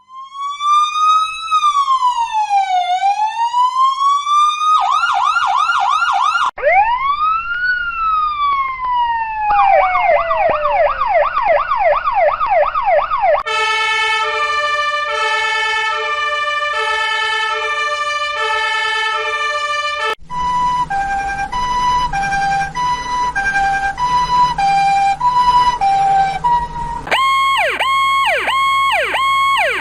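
A string of electronic emergency-vehicle sirens (police, ambulance and fire truck) cut one after another. It goes from a slow rising and falling wail to a quick yelp, another wail and a repeating falling sweep. Then come a stepped multi-note pattern, a two-tone hi-lo alternating about once a second, and a fast pulsing yelp near the end.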